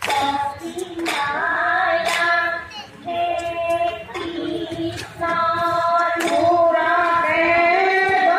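A group of women singing Jeng Bihu songs together, with long held lines that glide between notes. A few sharp clacks sound now and then.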